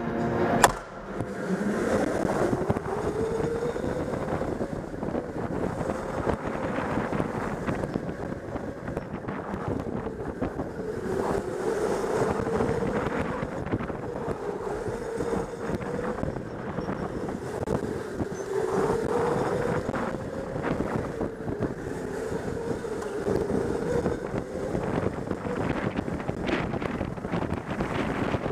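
An electric go-kart's motor whining as the kart pulls away after a sharp knock near the start. Its pitch rises with speed, holds, and dips twice as it slows for corners, under steady wind noise on the microphone.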